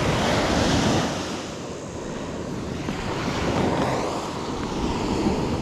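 Ocean surf washing on the beach, with wind: a steady rushing that swells in the first second, eases, then builds again.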